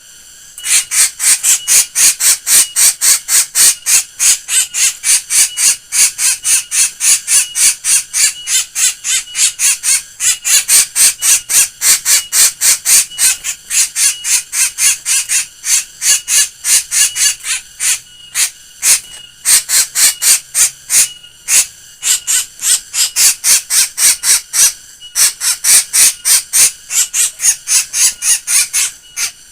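A black bird giving a laugh-like cackling call: a fast run of short notes, about four to five a second, in long bouts broken by brief pauses.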